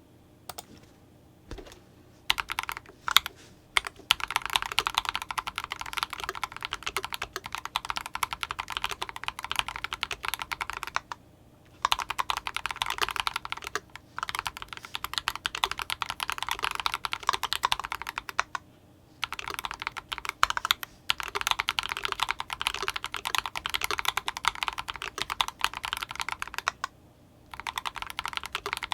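Fast typing on an IDOBAO ID87 V2 mechanical keyboard with fully lubricated Akko POM Silver linear switches and CMK keycaps. The typing starts with a few single key presses, then runs in quick continuous strokes that break off briefly three times.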